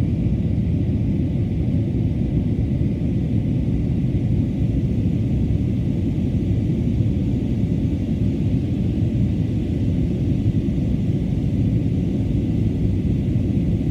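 Steady low cabin rumble of an Airbus A320-family jet airliner climbing after takeoff: engine and airflow noise heard from inside the passenger cabin, even in level throughout.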